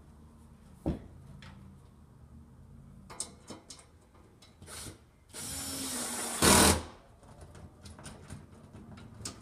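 Cordless drill/driver with a square-drive bit driving a mounting screw for a little over a second. Its whir drops in pitch as the screw takes up, and it ends in a brief louder burst. A few light clicks and knocks of handling come before and after.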